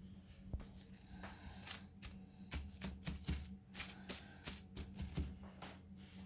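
An irregular series of a dozen or so dry crackles and clicks over a low steady hum.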